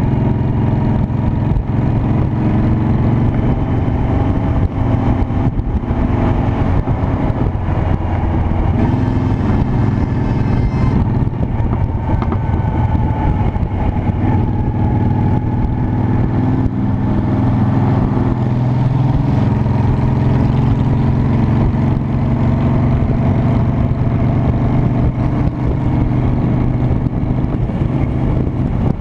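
Honda Shadow Spirit 750's V-twin engine running steadily while riding in traffic, its pitch shifting a little with the throttle, over road and wind noise.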